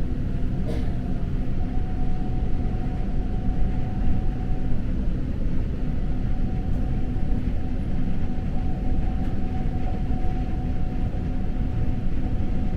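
Train running at speed, heard from aboard: a steady low rumble of wheels on the track with a thin steady whine above it and an occasional faint click.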